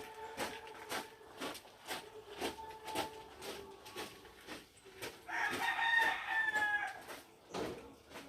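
A rooster crowing once, a loud call of nearly two seconds starting about five seconds in and dipping slightly in pitch at the end. Under it, a steady run of light knocks about twice a second.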